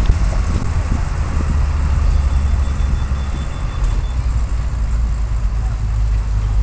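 Open-topped safari tour vehicle driving along: a steady low engine and road rumble.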